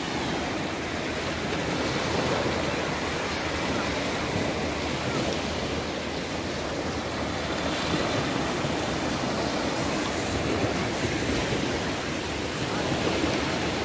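Sea surf breaking on a sandy beach: a steady, unbroken wash of waves.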